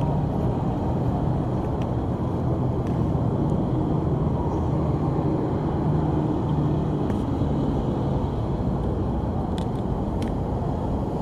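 Steady road traffic: city buses and cars passing on a busy multi-lane road, a constant rush of tyre noise over a low engine hum.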